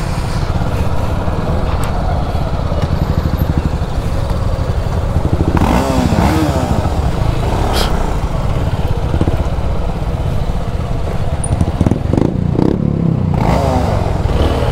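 Motorcycle engine running steadily at low speed as the bike rolls slowly, with other motorcycles running close by.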